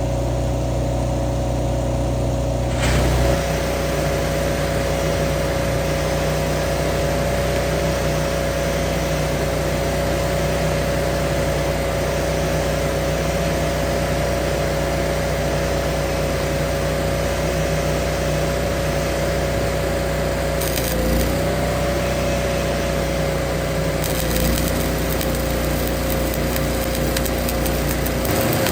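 Skid-steer forestry mulcher running, a steady high whine over the engine, with a rougher grinding of wood coming in about three seconds in. The whine sags briefly twice later on as the machine takes load.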